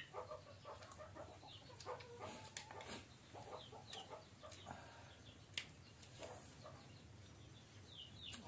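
Faint chickens clucking, with short, high, falling peeps every few seconds and a few light clicks of spoons on bowls.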